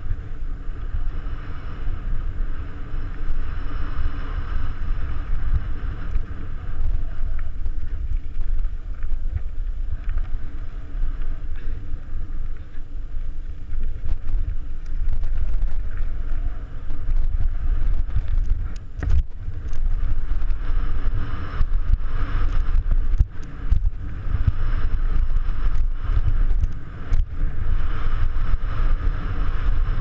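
Mountain bike rolling over gravel and dirt, heard through an action camera's microphone: steady wind buffeting and tyre rumble, with sharp knocks and rattles from the bike starting a little past halfway.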